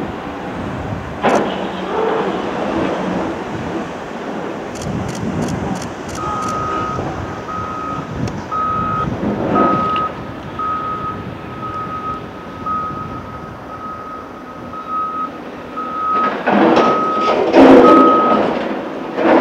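CAT 374F hydraulic excavator's diesel engine working under load while its bucket scrapes and crashes through broken rock, with the loudest rock clatter near the end. From about a third of the way in, a reversing alarm beeps steadily about once a second until just before the end.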